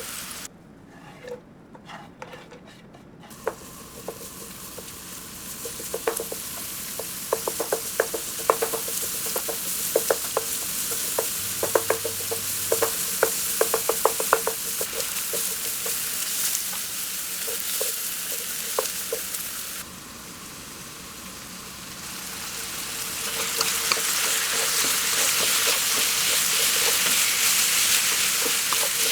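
Food sizzling in a hot frying pan while it is stirred, with quick taps and scrapes of the utensil against the pan through the middle stretch. The sizzle builds and is loudest near the end.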